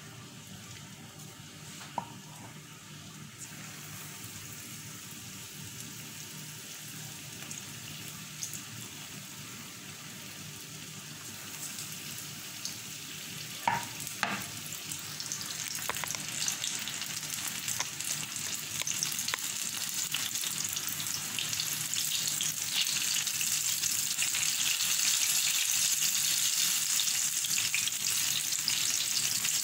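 Gram-flour-battered stuffed chillies (chilli bajji) deep-frying in hot oil: a sizzling, crackling hiss that starts faint and grows louder as more pieces go into the pan, loudest over the second half. A couple of sharp knocks sound about halfway through.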